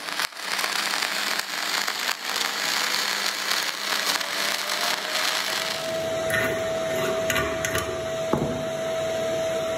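Dual-shield flux-core wire welding arc on clean steel, crackling steadily as the bead is run.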